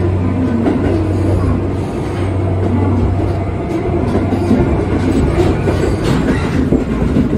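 Diesel railcar running on the track, heard from inside the cabin: a steady low engine drone that falls away about halfway through, over the rumble of the wheels, with clicks over the rail joints in the second half.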